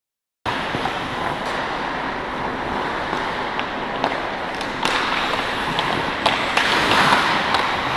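Ice hockey game sound from behind the net: a steady hiss of skates on ice and rink noise, with sharp clacks of sticks and puck scattered through, starting abruptly about half a second in.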